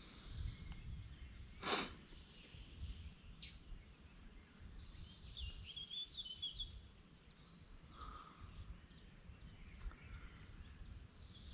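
Quiet riverbank ambience with an uneven low rumble underneath. A short, sharp noisy burst comes about two seconds in, and a bird gives a quick series of high chirps around the middle.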